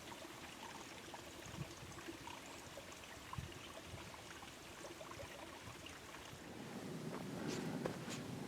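Faint steady rush, like a small stream of running water. Footsteps and rustling on the trail come in and grow louder near the end.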